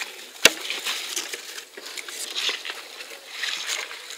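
A carp being eased out of a landing net in shallow water: soft rustling of the net and small water movements, with one sharp knock about half a second in.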